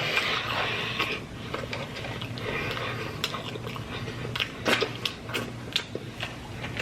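Close-up eating sounds of a person chewing fast food, with irregular sharp clicks and taps from handling the food and its packaging, clustered from about three seconds in.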